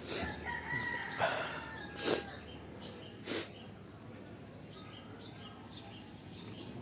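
Sand being poured into a sawn bamboo container in three short hissing rushes, about a second apart, with faint gliding bird calls in the background.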